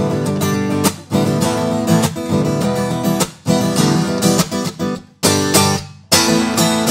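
Acoustic guitar strumming chords, a recorded equalization example; in the later part it is the version with the frequencies around 5 kHz boosted, which makes the mids noticeably stronger.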